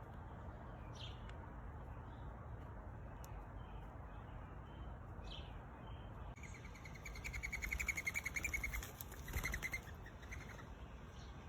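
Small songbirds calling: a couple of short, high, falling chirps, then about six seconds in a rapid chattering trill that runs for about three seconds before trailing off in a few softer notes.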